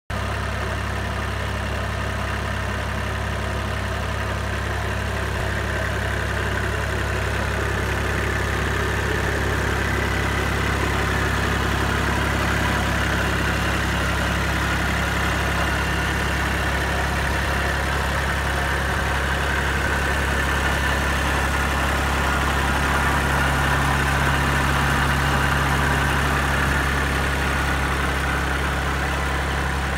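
Kubota L2601 compact tractor's diesel engine idling steadily, a constant low hum.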